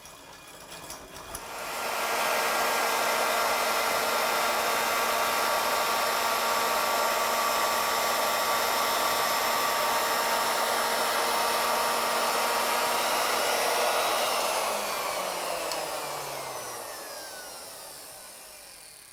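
Plunge router on an ornamental mill starting up and running steadily at full speed with a high whine. About fourteen seconds in it is switched off and winds down, its pitch sliding lower as it fades.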